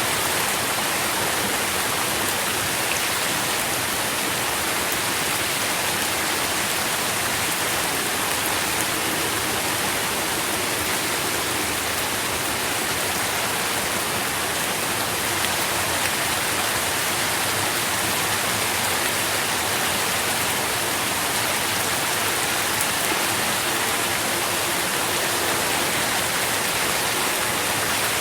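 Steady rain falling, an even hiss of many drops with no breaks or changes.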